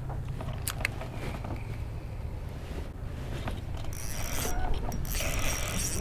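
Spinning reel being cranked in two short spells from about four seconds in: a whirring, clicking gear sound with a thin high whine. A couple of light clicks come about a second in.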